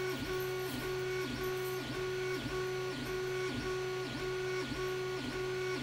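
Creality Ender 3 bed stepper motor whining as it drives the print bed back and forth, the pitch dipping each time the bed reverses, about twice a second. A steady low hum runs underneath.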